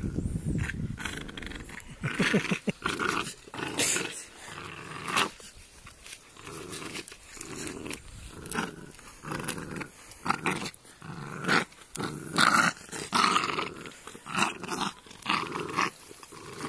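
Three-month-old pit bull puppy growling in repeated bursts while it worries a slipper it has grabbed.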